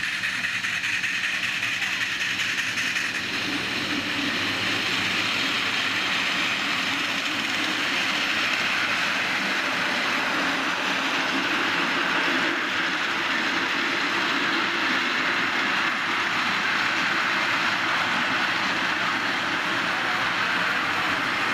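A 5-inch gauge miniature live-steam locomotive hauling a passenger train past: a steady rushing rumble of the train running on the track, a little louder from a few seconds in.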